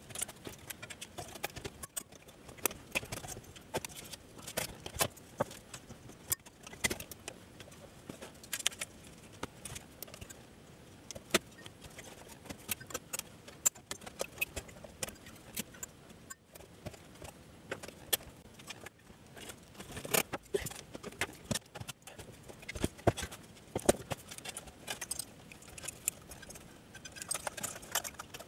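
Hands working on a bench power supply's metal chassis and circuit board: irregular sharp clicks, taps and metallic clinks of parts, screws and tools being handled and fitted.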